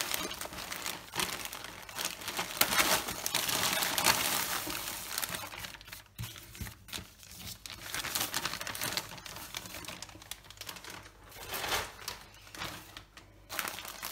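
Plastic mailer bag and paper wrapping crinkling and rustling as a parcel is unpacked by hand, in irregular bursts that are loudest in the first few seconds.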